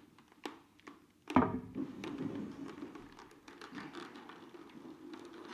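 Handling noise from a clip-on microphone on a motorcycle helmet as the helmet is pulled on: scattered taps and knocks, one loud knock a little over a second in, then rubbing and scraping against the shell.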